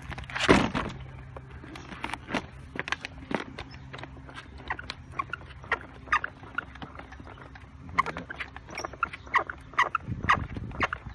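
Skateboard truck bushings squeaking as the board is leaned under foot: many short, irregular squeaks, several a second, from dry bushings that need greasing. A thump about half a second in, and a low steady hum until about seven seconds in.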